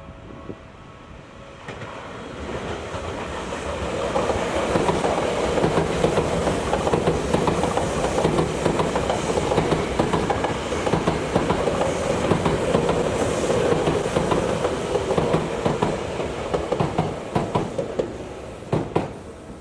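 Tokyu Toyoko Line electric commuter train passing over a level crossing, its wheels clattering over the rail joints. It builds up over the first few seconds, stays loud through most of the pass, and fades near the end.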